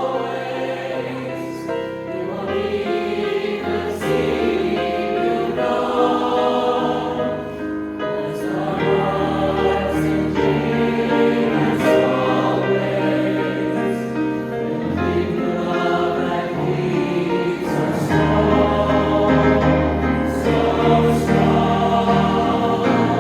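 A choir singing a slow song in harmony, many voices together with low held notes underneath.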